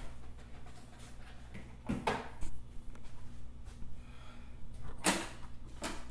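Kitchen clatter: sharp knocks and clunks, like cupboard doors or drawers being shut, one at the start, a pair about two seconds in and another pair near the end, over a low steady hum.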